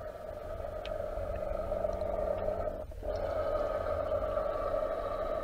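Radio-controlled model submarine's electric drive motor and propeller running, heard underwater as a steady whine over a low rumble. The whine cuts out for a moment about three seconds in, then resumes.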